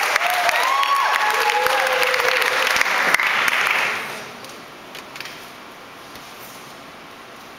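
Audience applauding, with a few whoops over the clapping, dying away about four seconds in.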